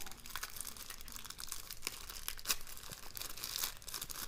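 Packaging crinkling and crackling irregularly as an accessory is unwrapped and handled, with small clicks throughout.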